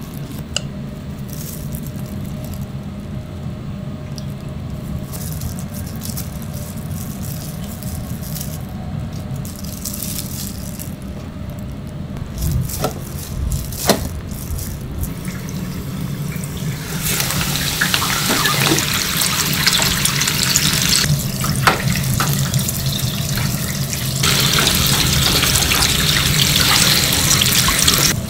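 Breaded whole prawns sizzling in a deep fryer's hot oil, an even, crackling hiss that starts a little past halfway and is loudest near the end. Before it, a steady low hum with a few light clicks and rustles of prawns being handled in flour and breadcrumbs.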